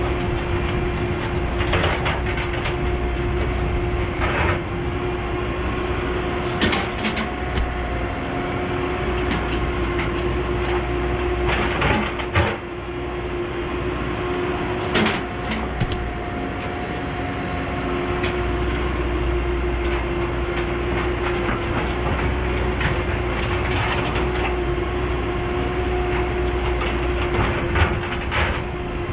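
Cat 314E excavator's diesel engine running steadily with a constant whine, while the bucket scrapes and knocks against rock every few seconds.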